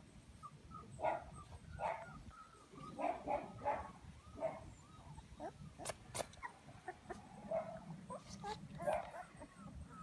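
Akita Inu puppies play-fighting in a pile, giving many short high yips and whines, some sliding in pitch. Two sharp clicks come about six seconds in.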